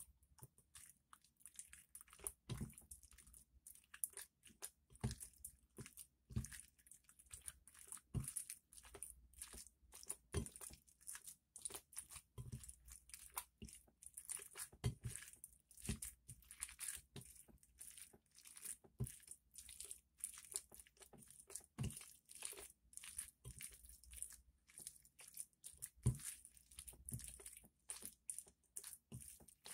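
Glossy slime with makeup mixed in, kneaded, squeezed and pulled by hand against a glass plate: a rapid stream of small sticky clicks and crackles, with a louder pop every second or two.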